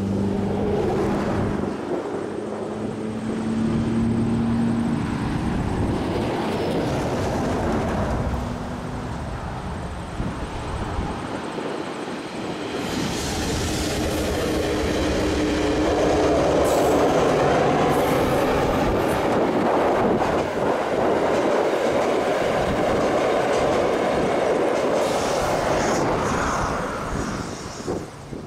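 KiwiRail DXC-class diesel-electric locomotive hauling the Coastal Pacific passenger train: its engine running at first, then a steady rumble of wheels on rail with clickety-clack and a few sharp clicks, loudest in the second half.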